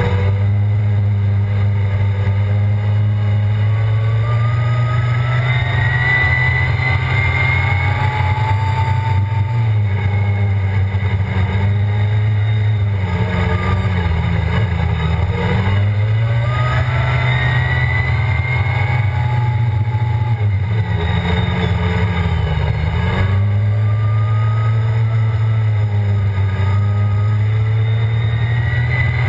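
ATV engine running hard at speed. Its pitch climbs several times as it accelerates and sags twice as it eases off.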